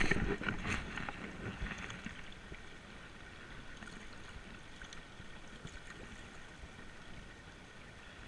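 Shallow, rocky trout stream running steadily, with a brief burst of splashing in the first second as the water is disturbed close by.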